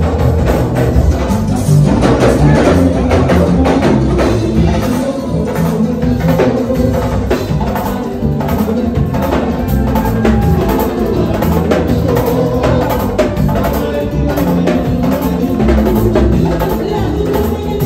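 Live mbalax band playing, with drums and percussion keeping a busy, steady beat.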